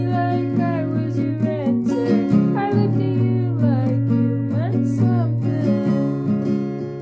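Acoustic guitar strummed in a steady rhythm of chords, with a voice singing a melody over it.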